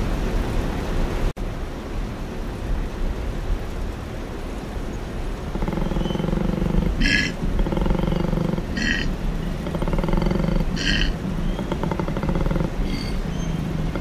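Koala bellowing: a run of low, rapidly pulsing, snore-like grunts that starts about five seconds in and comes in repeated phases. Short bird chirps sound in the background.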